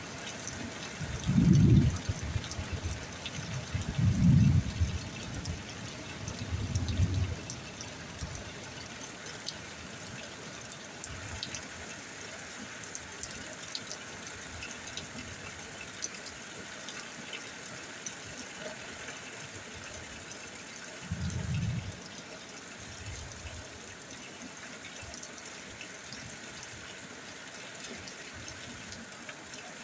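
Steady rain at night, a continuous hiss with scattered drip ticks and a trickle of running water. Short low rumbles come about 1.5, 4 and 7 seconds in and again about 21 seconds in.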